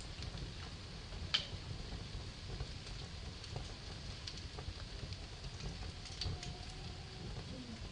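Wood fire burning in a fireplace, crackling with scattered sharp pops over a low steady rumble; the loudest pop comes about a second and a half in.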